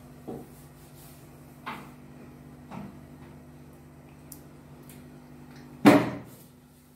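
A few short knocks and bumps in a small tiled bathroom, the last and loudest about six seconds in, over a steady low hum.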